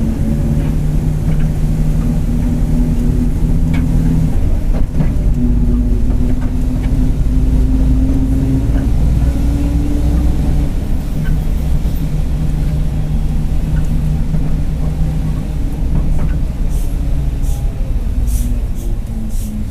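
Mercedes-Benz OF-1721 city bus under way: its diesel engine drones while the rear differential growls, a tone that slowly rises and falls in pitch with speed. A few light body rattles come near the end.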